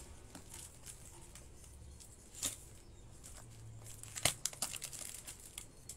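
Box cutter slicing along a cardboard parcel box, with small scrapes and crackles of the cardboard and tape, and two louder sharp cuts about two and a half and four seconds in.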